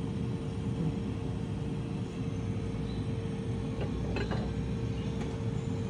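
Steady low rumbling hum with one constant tone running through it, like a running motor or fan, with a few faint clicks about four seconds in.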